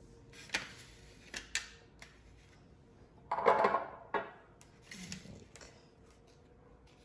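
Glass bottle and other items being moved about on a granite countertop: a few sharp knocks and clicks, then a louder scraping rub about three and a half seconds in, and a couple of softer knocks after.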